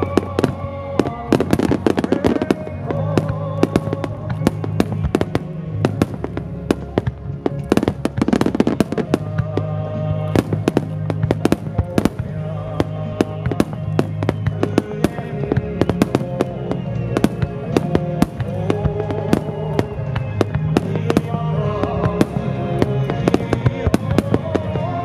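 Fireworks aerial shells bursting in rapid succession: dozens of sharp bangs, one after another throughout, over music.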